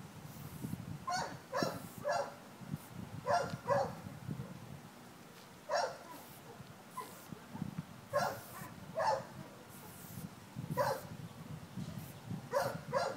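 A dog barking repeatedly, short sharp barks, often two in quick succession, every second or two.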